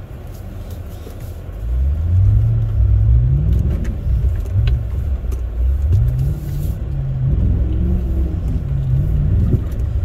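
Chrysler 300C's Hemi V8 heard from inside the cabin as the car pulls away. The engine note climbs, drops about four seconds in, then climbs again and holds.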